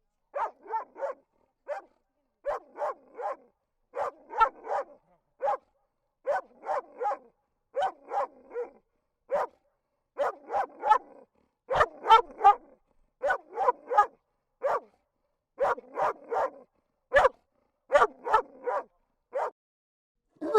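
A dog barking repeatedly in quick runs of two to four sharp barks, with short silent gaps between the runs.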